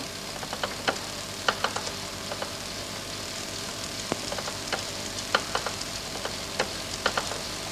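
Electrophorus (Wimshurst-type) electrostatic machine running: a steady whirring hum with irregular sharp crackling clicks, a few each second.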